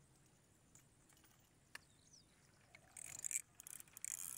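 Spinning reel's drag buzzing in short bursts from about three seconds in, as a big hooked catfish pulls line off against the bent rod; quiet before that.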